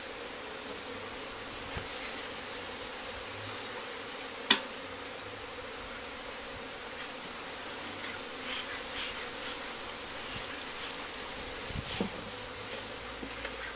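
Honeybees buzzing steadily in large numbers around a hive, with one sharp knock about four and a half seconds in.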